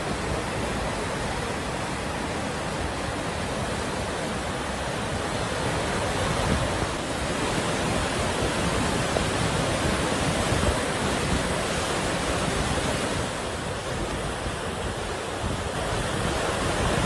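Steady, unbroken rush of a swollen, muddy river in spate, its floodwater churning over itself.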